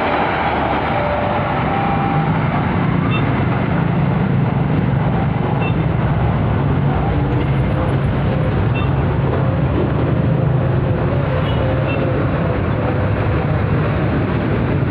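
Argo Merbabu passenger train running, a loud steady low rumble.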